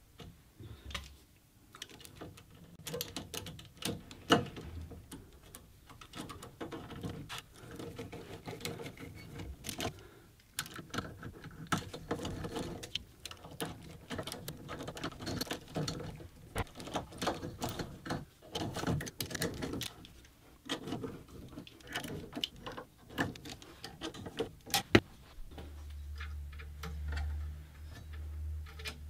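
Small metal parts being handled on a CNC machine's aluminium frame: irregular clicks, taps and scrapes from a screwdriver at the stepper motor mount and from a bearing and locking collar being fitted onto the threaded Acme lead screw. A low steady hum comes in near the end.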